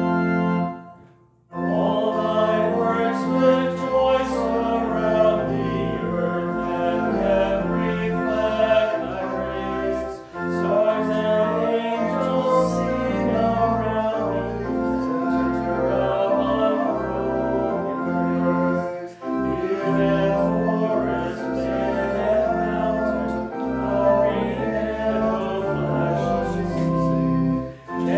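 A hymn sung with organ accompaniment. The organ holds a chord, breaks off about a second in, and then the singing begins in phrases with short breaks between them.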